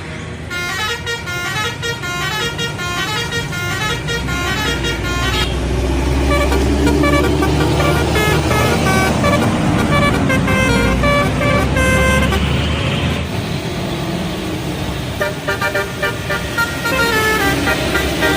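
Bus telolet horn: a set of air horns playing quick melodic runs of short, stepped notes, in three bursts, over the low rumble of the bus's engine, which swells in the middle as the bus passes close.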